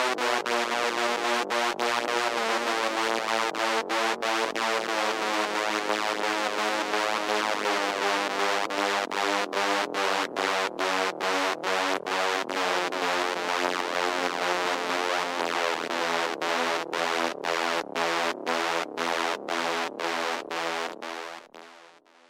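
Synthesized electronic alarm siren: a dense chord of steady tones broken by short, regular gaps. The gaps come about twice a second in the second half, and the tone fades out near the end.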